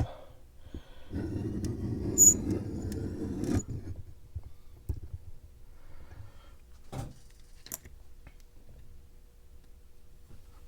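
Hands handling small metal lock parts: a stretch of rustling and shuffling about a second in with one sharp metallic click in it, then a few scattered light clicks.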